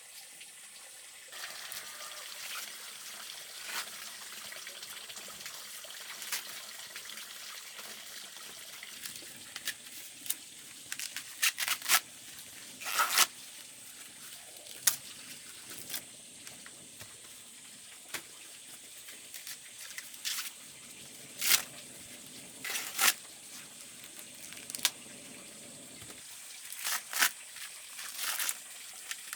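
Water running steadily, with scattered sharp clicks and rustles of handling over it. The lower part of the running sound stops about 26 seconds in.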